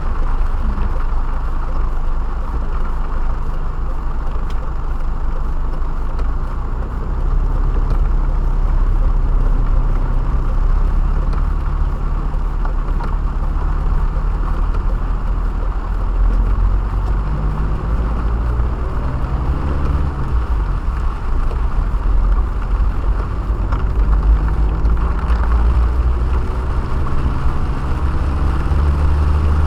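Car cabin noise while driving: a steady low road rumble with the engine note rising several times as the car picks up speed, under a steady hiss.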